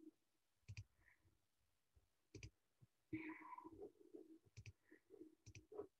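Several faint computer mouse clicks, spaced irregularly over near silence, with a faint low murmur about three seconds in.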